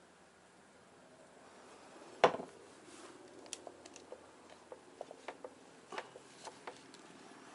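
A stick stirring thick adhesive in a clear plastic cup, giving a run of light clicks and taps against the cup. One sharper knock a little over two seconds in is the loudest sound.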